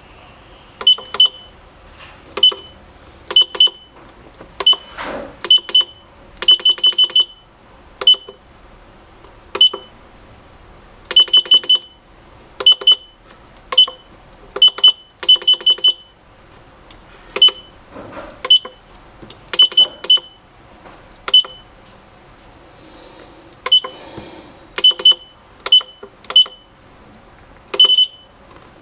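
Four-channel kitchen timer giving a short high beep at each key press as time values are keyed in: single beeps, pairs and quick runs of four or five, irregularly spaced.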